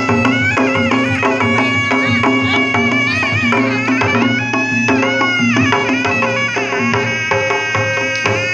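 Sundanese pencak silat accompaniment played live: a reedy, wind-instrument melody that bends and ornaments its high notes, over steady drumming and held low tones.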